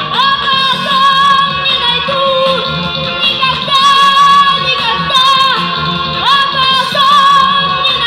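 A young girl singing live into a microphone over instrumental backing, amplified through stage speakers. She holds long wavering notes and slides up into a note twice, near the start and about six seconds in.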